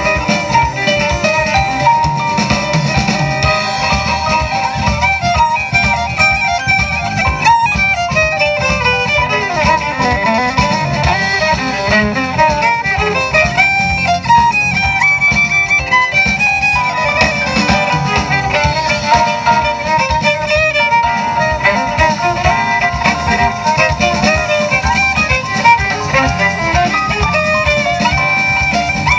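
Live jazz band playing, a violin carrying the lead over bass guitar and drums.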